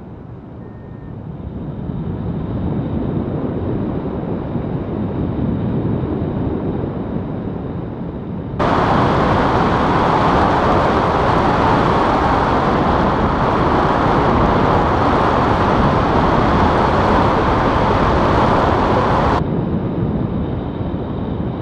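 Wind rushing over a camera microphone on a paraglider in flight, a steady noisy rush. A little over a third of the way in it switches abruptly to a louder, brighter rush, which lasts about ten seconds and then drops back just as suddenly.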